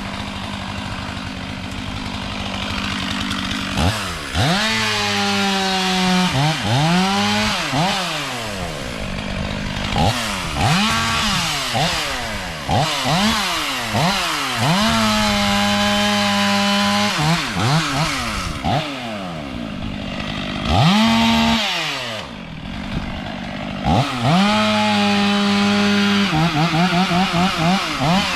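Two-stroke chainsaw idling, then revved up again and again, each time rising in pitch and held at full speed for a second or two while cutting into a tree, with a run of quick throttle blips near the end.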